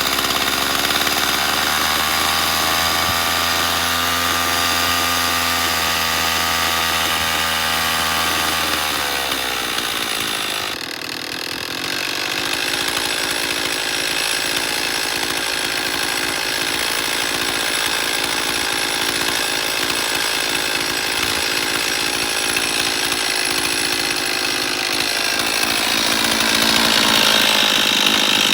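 Stihl two-stroke chainsaw engine running after a carburetor repair. Its note changes abruptly about ten seconds in, then it runs on steadily and rises again near the end.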